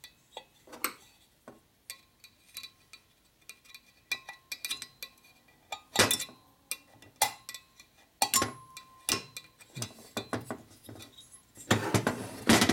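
Hand tools clicking and clinking against the valve stem and guide of a Harley shovelhead cylinder head while a stuck valve seal is picked and pried off. The metal ticks come irregularly, some with a brief ring, the loudest about six, seven and eight seconds in, with a short rasp near the end.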